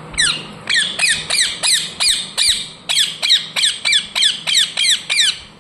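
Pet parrot calling a rapid, even run of short, sharp, high-pitched chirps, each sliding down in pitch, about three a second.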